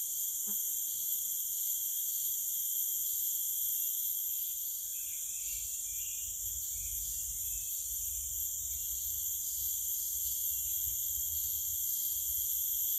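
Steady chorus of tropical forest insects: a continuous, even, high-pitched buzzing in several layers that never breaks. A faint low rumble sits underneath from about five seconds in.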